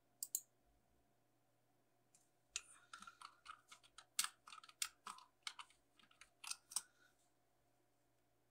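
A quick double click, then a run of quick irregular clicks and taps lasting about four seconds, like keys being typed.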